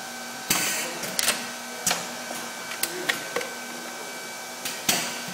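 Pneumatic actuators on an automated hardcover book-binding machine cycling: a short hiss of air about half a second in, then a string of sharp metallic clacks spread over the next few seconds, over a steady machine hum.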